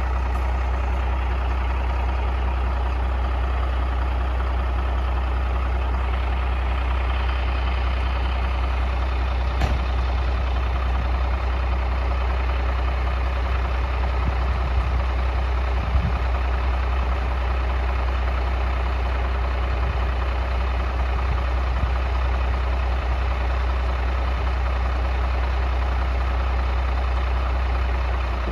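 Kenworth Aerodyne cabover semi truck's turbo diesel engine idling steadily, with a couple of brief knocks about ten and sixteen seconds in.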